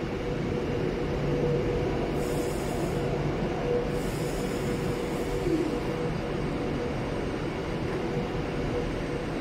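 Avanti West Coast passenger train rolling slowly along the platform: a steady rumble of wheels and running gear with a constant hum.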